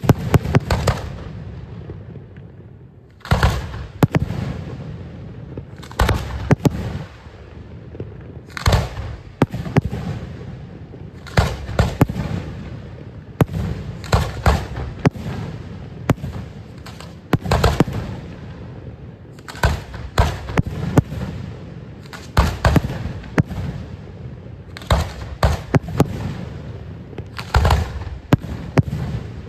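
Fireworks bursting overhead: a steady series of sharp bangs, singly or in quick groups of two or three about every two to three seconds, each followed by a low echoing rumble.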